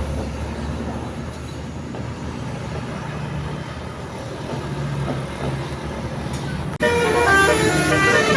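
Low engine rumble and road noise from passing heavy traffic, then, about seven seconds in, a sudden switch to a loud basuri telolet horn playing a melody of several tones in quick steps.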